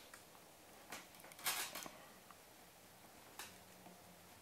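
Faint scraping and soft clicks of a plastic shotgun wad being rolled along the edge of a wooden table: a click about a second in, a short scratchy rub just after, and another click near the end.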